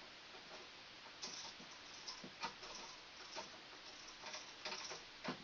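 Faint, irregular clicks and light taps, about half a dozen, from a screwdriver and wires being worked at a light switch's clamp-style screw terminals.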